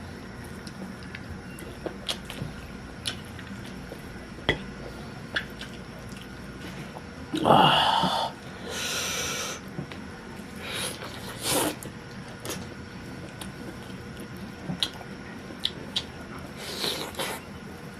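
A person eating roasted chicken: scattered small wet clicks of chewing and lip smacking, with a louder breathy noise lasting about two seconds near the middle and shorter ones later.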